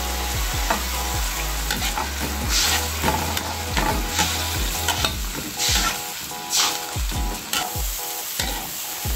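A steel spatula scraping and stirring around a wok in repeated strokes, over the steady sizzle of black beans, onion and garlic frying in oil with a little water added.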